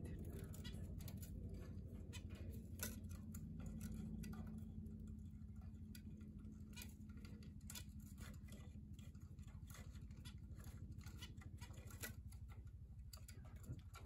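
Faint, irregular little clicks and taps from a cockatiel and a zebra finch hopping and landing on wooden perches, over a low steady hum.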